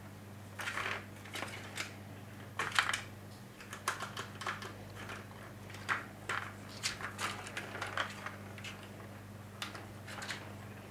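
Irregular plastic clicks and rattles from a Catit Design Senses play rail, a cat's ball-in-track toy, as cats bat the ball around the track. A steady low hum lies underneath.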